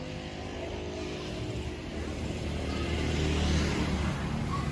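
Distant motorcycle engine running, a low hum with a broad rush that grows louder about three seconds in.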